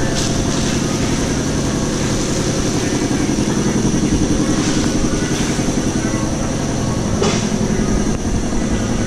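Steady low mechanical drone, like an idling engine, with a few brief rustles of plastic wrap.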